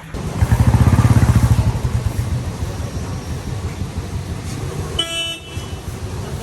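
Ferrari 812 Superfast V12 with a Novitec Inconel exhaust, loud for about a second and a half just after the start, then easing to a rumble among street traffic. A vehicle horn beeps once, briefly, about five seconds in.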